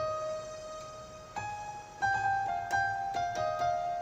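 Yamaha PSR-S950 keyboard playing a slow single-note melody of about seven notes, each struck and left to ring into the next.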